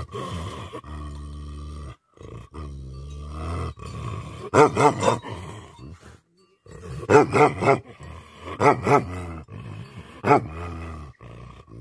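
Tibetan Mastiff giving deep, drawn-out growling calls for the first few seconds, then barking in quick bursts of two or three loud barks, ending with a single bark.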